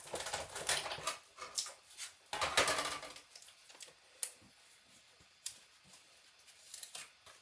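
Paper and small craft tools being handled on a cutting mat: rustling with light clicks and taps, including a louder rustle near three seconds in, then only a few isolated ticks.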